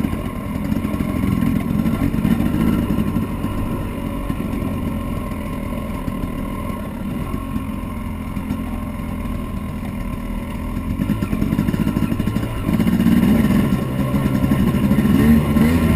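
Dirt bike engine running steadily as it climbs over a rocky woodland trail. About three quarters of the way through, the engine grows louder as more throttle is given.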